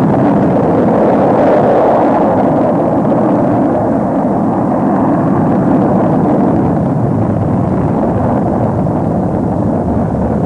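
Rocket engine noise at lift-off: a loud, steady rushing sound that eases slightly toward the end.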